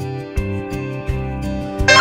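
Background music with a steady beat. Just before the end, a bright effect of several falling tones comes in louder.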